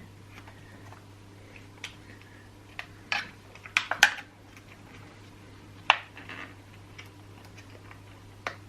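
Scattered light clicks and knocks of chainsaw parts and hand tools being handled during reassembly, about eight in all, the loudest a pair about four seconds in, over a steady low hum.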